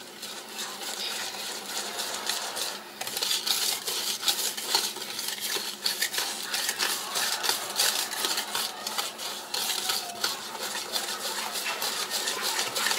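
Metal wire whisk beating liquid pecan pie filling in a ceramic bowl: quick, continuous clinking and scraping of the wires against the bowl.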